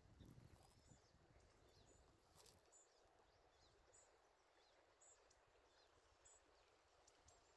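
Near silence: faint room tone with faint, short, high chirps about once a second.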